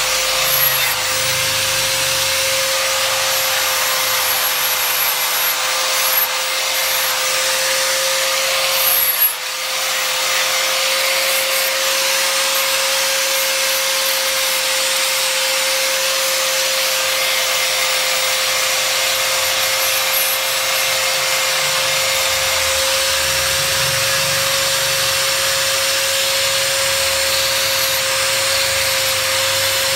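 Angle grinder with a sanding pad running steadily with a constant whine while sanding the steel face of an old Japanese cleaver blade during its restoration. The sound dips briefly about nine seconds in.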